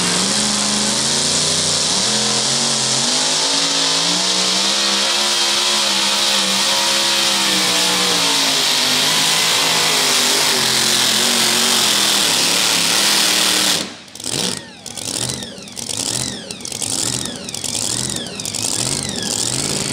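Supercharged engine of a super modified two-wheel-drive pulling truck at full throttle under sled load, its pitch wavering. About 14 seconds in, the throttle is chopped and the engine is blipped in a string of short revs, each falling away, as the pull ends.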